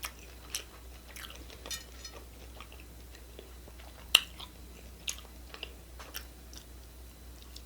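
A person chewing Taco Bell crunchy taco shells, with scattered small crunches and one sharper crunch about four seconds in.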